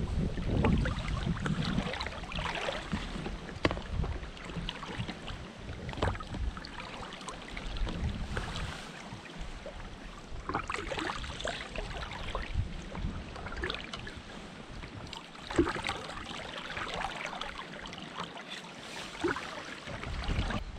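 Water sloshing and splashing around a small boat on a river, with wind buffeting the microphone for the first couple of seconds and a few sharp knocks.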